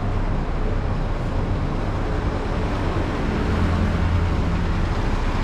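Mitsubishi Fuso Fighter's 6M60 inline-six turbo diesel idling steadily, a constant low hum.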